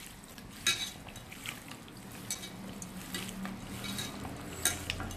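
A hand mixing raw chicken pieces with sliced onion, spices and curry leaves in an enamel pot to rub in the marinade, with scattered light clinks against the pot.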